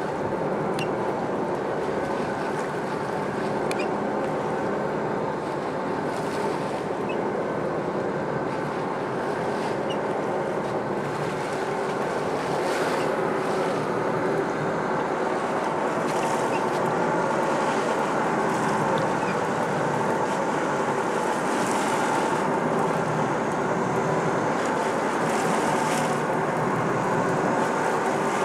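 A fishing boat's engine running steadily under way, with the rush of water along the hull and wind on the microphone.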